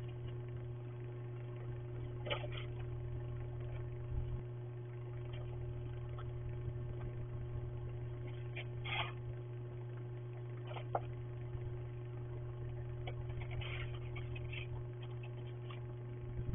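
Steady low electrical hum, with a few faint, brief scrapes of a snow shovel scattered through it.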